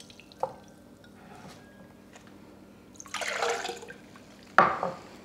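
Water poured from a glass mason jar into a ceramic planter, a splashing pour for about a second starting three seconds in. A sharp knock follows about half a second later, the loudest sound here.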